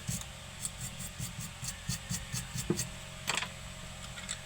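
Quick repeated scrubbing strokes, about six a second, as a freshly soldered phone charging connector and its circuit board are rubbed clean of solder paste residue. A couple of sharper single scrapes or taps follow near the end.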